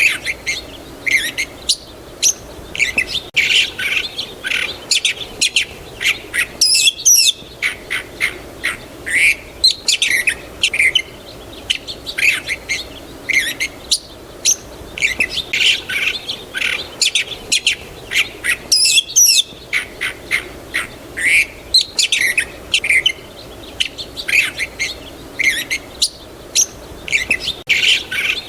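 Several small songbirds chirping and singing, a dense run of short high calls one after another over a faint steady background. The same stretch of birdsong seems to repeat about every twelve seconds.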